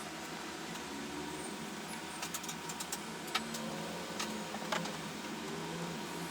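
Steady hum of bench equipment with several small sharp clicks and taps of hand tools during micro-soldering work, starting about two seconds in.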